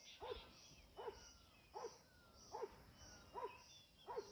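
An animal calling over and over, faintly: a short call about every 0.8 seconds, about six in all, each rising and falling briefly in pitch. A pulsing high hiss and a few thin whistles run underneath.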